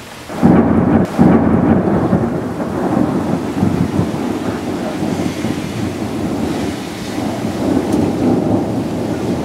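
A thunderclap in a rainstorm: a sudden loud crack about half a second in, a second crack a moment later, then a long rumble that slowly fades. Rain falls steadily underneath.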